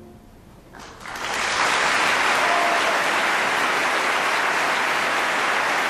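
Live audience applause breaking out about a second in, after a brief near-quiet, then holding steady as a dense clapping.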